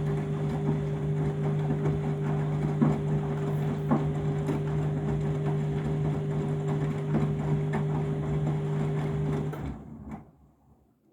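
Candy washing machine running its third rinse on a load overdosed with detergent: a steady machine hum with irregular sloshing, splashing and plopping of water in the drum. The sound cuts off about ten seconds in and fades away.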